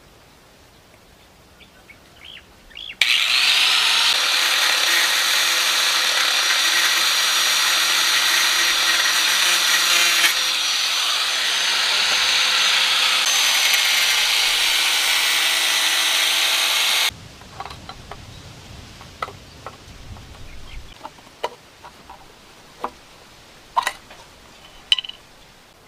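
Handheld corded electric drill running on blue PVC pipe: it spins up with a rising whine, runs steadily for about fourteen seconds, then stops suddenly. Afterwards a few light clicks and taps of handling.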